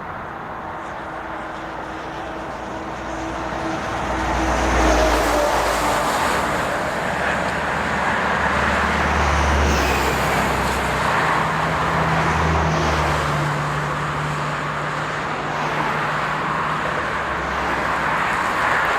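Heavy vehicle traffic: a deep engine rumble swells about four seconds in and carries on over a steady wash of traffic noise, with a steady low hum joining in the second half.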